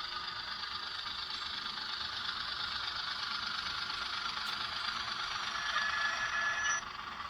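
Rapido model diesel locomotive running fast, its sound decoder playing diesel engine sound through the small onboard speaker over the rattle of the model's drive and wheels on the track. Near the end the sound swells, a thin high steady tone joins for about a second, and then it drops.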